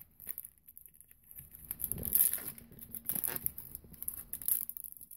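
A foil hockey-card pack torn open and its wrapper crinkled by hand, in several irregular rustling bursts, the loudest about two seconds in.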